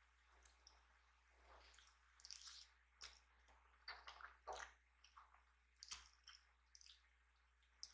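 Faint, close-miked slurping and chewing of ramen noodles: a run of short wet smacks and slurps that starts about a second and a half in.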